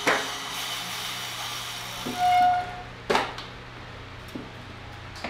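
Steady hum and hiss of the training room's large floor fan and bike trainer running. There is a sharp knock near the start, a short high beep about two seconds in, and another knock about a second later.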